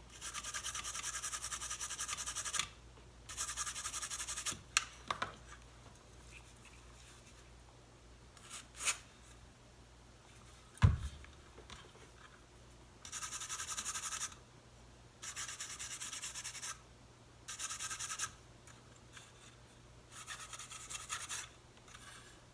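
A small brush scrubbing corrosion off a liquid-damaged MacBook Pro logic board, in six short bouts of brisk strokes. One sharp knock about eleven seconds in.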